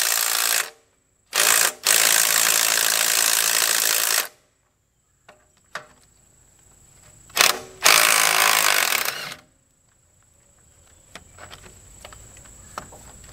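Cordless 3/8-inch impact wrench hammering bolts loose on a backhoe's hydraulic hose keeper blocks. It runs in bursts: one that stops under a second in, a short blip and a run of about two seconds, then after a pause another blip and a run of about a second and a half.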